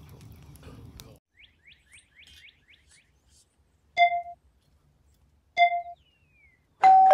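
Animated subscribe-button sound effects: two short click-pops with a brief ring, about a second and a half apart, then a loud two-tone bell chime near the end that rings on and slowly fades. Faint bird chirps and light outdoor noise come before.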